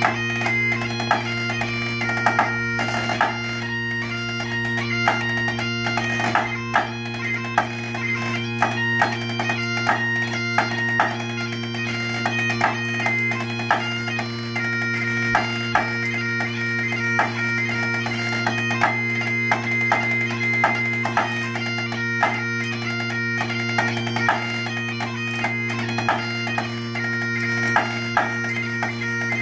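Highland bagpipes playing a tune over their steady drones, with drumsticks tapping out a rhythm on a harness-mounted practice pad as accompaniment, the taps sharp and frequent.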